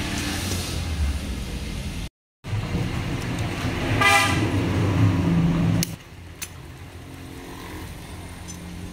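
Steady background road traffic with engine noise, and a vehicle horn sounding once, briefly, about four seconds in. The sound cuts out for a moment about two seconds in and drops quieter about six seconds in, where a couple of light metal clicks are heard.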